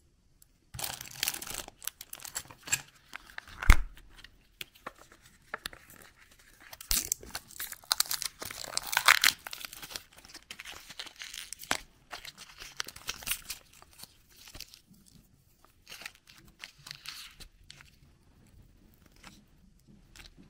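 Plastic wrapping tearing and crinkling in the hands as a surprise egg toy and its sealed cream cup are peeled open, in irregular crackles with scattered clicks. A sharp knock a little under four seconds in is the loudest sound.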